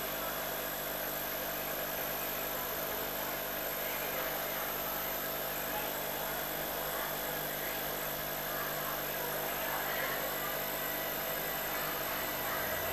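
Steady mechanical hum and hiss with several fixed tones, and faint indistinct voices in the background.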